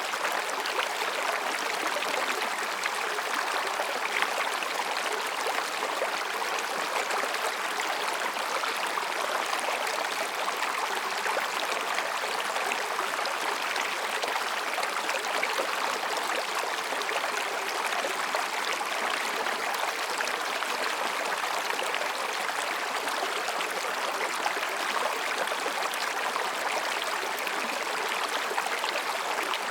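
Mountain stream babbling over and between rocks: a steady, even rush of water with no change.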